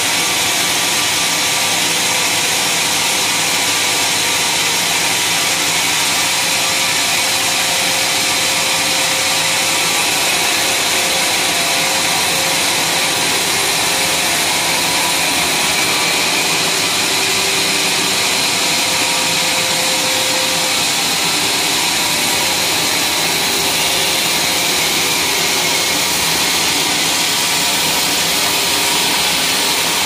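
Homemade band sawmill ripping lengthwise through a huge, thick log. The blade makes a steady, unbroken hiss-whine in the wood over the running motor.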